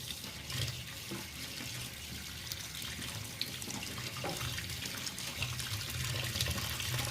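Water running steadily while ciplukan leaves, fruit and roots are washed by hand, with small splashes now and then.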